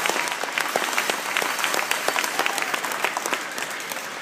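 Audience applauding, the clapping thinning out toward the end.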